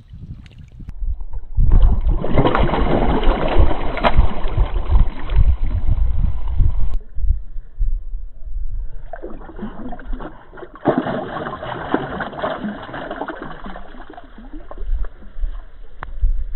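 Water sloshing and splashing in shallow water as a hooked fish is played at the bank, with a heavy low rumble of wind on the microphone. It comes in two long stretches, easing off for a couple of seconds in the middle.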